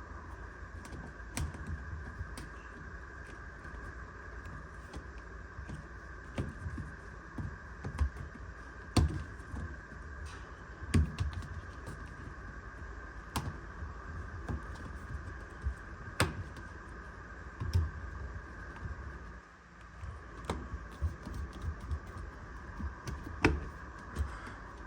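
Irregular taps, clicks and light knocks of hands pressing a front-load washer's rubber door gasket back onto the lip of the front panel, over a steady high hum.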